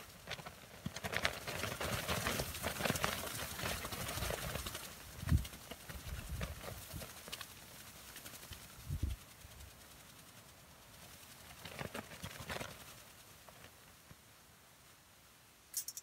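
A tarp rustling and flapping in gusty wind, loudest in the first few seconds, with two low thumps about five and nine seconds in and a short sharp click near the end.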